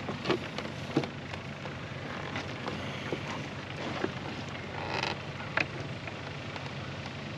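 Spinning rod and reel being handled and cast: scattered small clicks and knocks over a steady low hum, with a brief swish about five seconds in.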